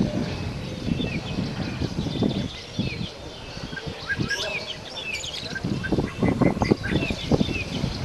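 Caged songbirds chirping and calling, many short overlapping calls. Irregular low rumbles run underneath and grow heavier about six seconds in.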